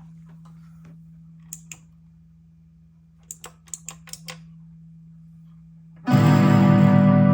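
A steady low hum with a few light clicks, then about six seconds in an electric guitar chord played through a Line 6 modelling amp rings out loudly and begins to fade.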